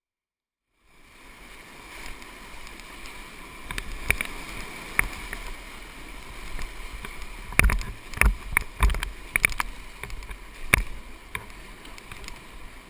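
Rushing whitewater heard from a kayak-mounted action camera, starting about a second in, with a run of sharp knocks and splashes as water and the paddle hit close to the camera housing, thickest from about eight to eleven seconds in.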